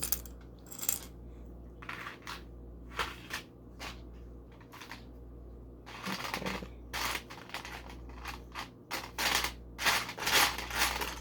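Small plastic LEGO pieces clicking and clattering as they are handled, picked up and snapped together: a string of sharp clicks, sparse at first and busier and louder in the second half.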